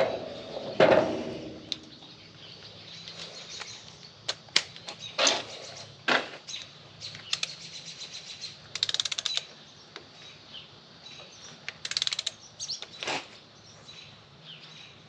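Socket wrench and torque wrench working the cylinder head stud nuts on a Ford 460 engine: scattered sharp metal clicks and clinks, with two quick runs of rapid ratchet clicking about nine and twelve seconds in. This is the head nuts being torqued down in a first pass to 70 foot-pounds.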